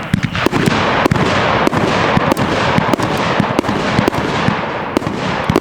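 A 500-gram, 30-shot firework cake of 1-inch tubes firing in rapid succession: sharp bangs come about three a second over a continuous hiss and crackle.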